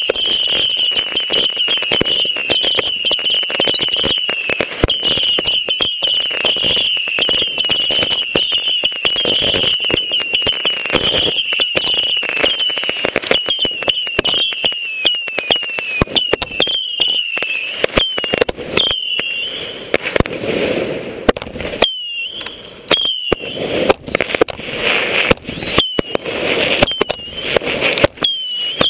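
Consumer fireworks finale at close range: rapid, dense pops and crackling with high whistles that keep sliding downward in pitch. About twenty seconds in, the barrage thins into separate loud bursts and whistles with short pauses between them.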